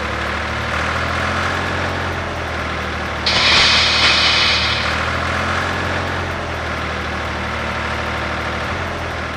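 Vehicle engine idling steadily with a low, even hum. About three seconds in, a loud hiss breaks in over it and lasts under two seconds.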